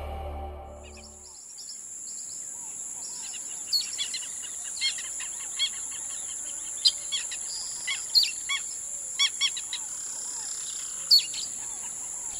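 Birds chirping and calling in short, sharp notes over a steady high-pitched insect drone.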